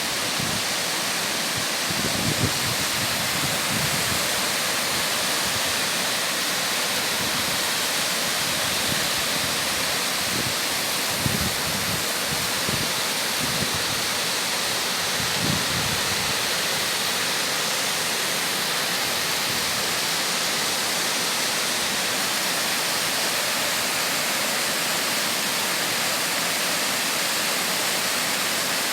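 Mountain stream water rushing steadily over rocks, a dense even wash with a few brief low gurgles in the first half.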